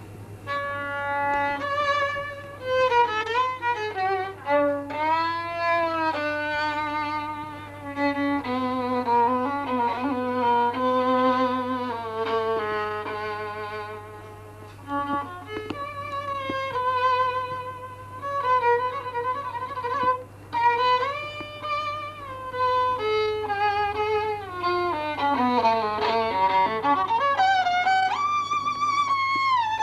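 Violin music: a slow melody with vibrato, notes gliding up and down and sometimes two sounding at once. A steady low hum runs beneath it.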